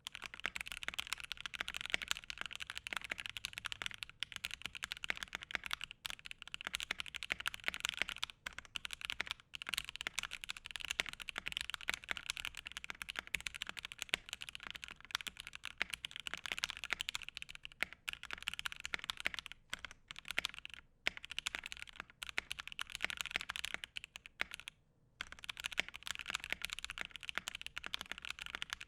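Gentleman65 custom mechanical keyboard with Alpaca linear switches on an acrylic plate, typed on quickly and steadily with a few short pauses. It sounds muted, with stabilizers that the builder says may be a bit rattly from too little lube.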